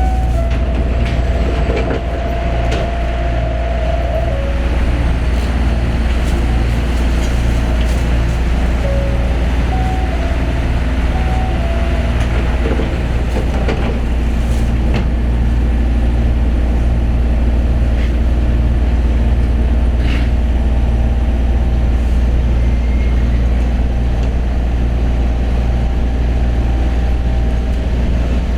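Osaka Monorail train heard from inside the car: a steady low running rumble with pitched motor tones that shift in pitch in the first few seconds.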